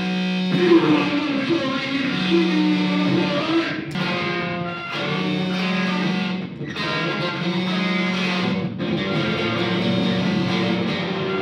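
Electric guitar, a Telecaster-style solid-body, played in an experimental noise piece: a low sustained note keeps returning about a second at a time, with jangling, dissonant notes above it and short breaks between phrases.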